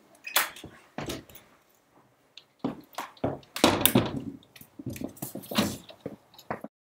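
A front door and a glass storm door being opened and handled: a string of knocks, thunks and latch clicks, busiest about three to four seconds in. The sound cuts off suddenly just before the end.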